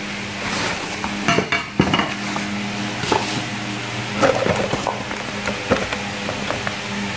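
A rice cooker's aluminium inner pot knocking and clinking as it is handled, with plastic wrapping crinkling and cardboard and paper rustling; a steady low hum runs underneath.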